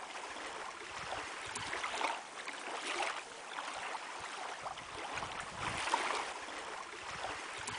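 Small waves lapping and washing against a rocky shore, swelling and easing in repeated washes about a second apart.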